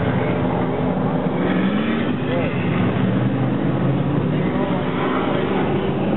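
Stock car engines running at racing speed on an asphalt oval, several cars together, their engine note shifting up and down as they pass through the turn.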